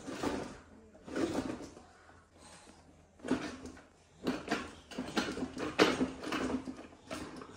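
A toddler babbling and laughing in short bursts of happy vocal sounds, about eight in all.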